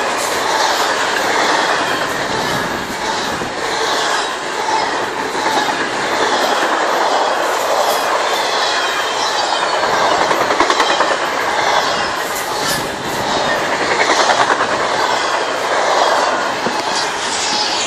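Double-stack intermodal freight cars rolling past close by: a loud, steady rumble and rattle of steel wheels on rail, with repeated clicking and clattering throughout.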